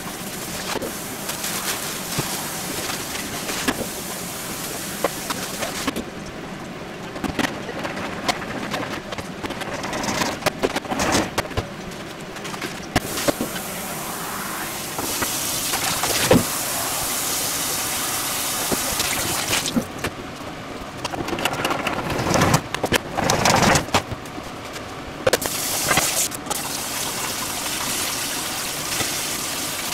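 Kitchen handling noises: scattered clicks and clatter of dishes and utensils over a steady hiss. Near the end a kitchen tap runs into a stainless steel bowl in the sink.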